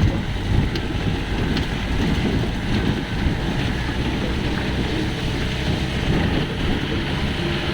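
Mahindra Thar jeep driving on a rough off-road track, a steady engine and road rumble heavy in the low end, with wind buffeting the microphone.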